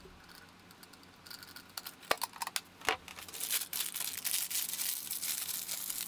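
A few sharp clicks and taps, then from about halfway a plastic bag crinkling and rustling as crumbled saltine crackers are shaken out of it onto a keyboard.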